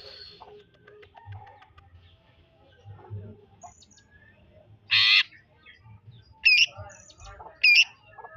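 Green leafbird (cucak ijo) singing in scattered bursts between soft chirps. About five seconds in comes a short, loud, harsh rasping burst, followed near the end by two loud sweeping whistled phrases about a second apart.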